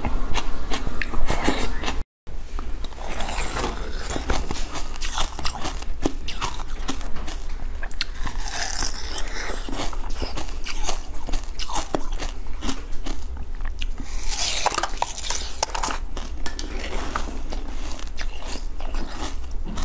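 Close-miked eating: a mouthful of small purple jelly beads, then, after a brief break about two seconds in, repeated bites and chewing of a green jelly dome, full of small crackling clicks.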